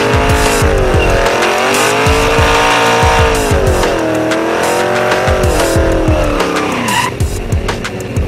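Supercharged Ford small-block V8 in a Factory Five Cobra replica doing a burnout. The engine revs rise and fall in waves while the tyres spin and squeal, and it all stops about seven seconds in. Music with a beat plays underneath.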